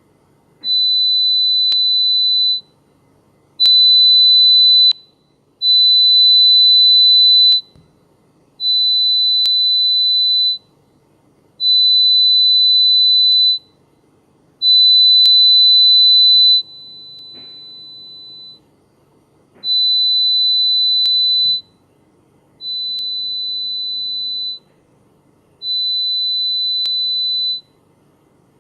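Pure-tone hearing-test app playing a single high test tone in beeps of about two seconds, roughly one every three seconds, ten in all. The loudness changes from beep to beep and one is much fainter, as the tone is presented at different levels in a pure-tone hearing test.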